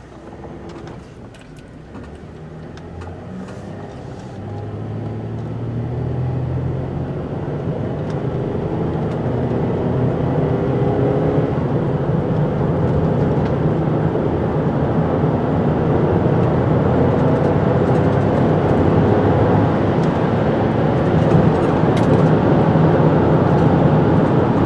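Chevy Traverse's 3.6-litre V6 accelerating through its gears, the engine note climbing slowly in pitch with small steps at the shifts, while engine and road noise grow steadily louder.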